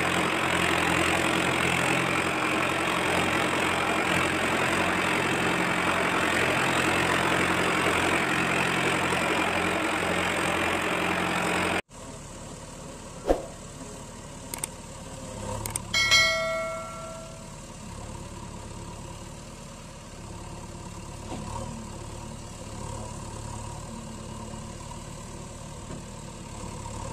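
Steady dubbed truck engine running sound that cuts off abruptly about twelve seconds in, dropping to a quieter engine idle. A sharp click comes soon after, then a short ringing chime a few seconds later.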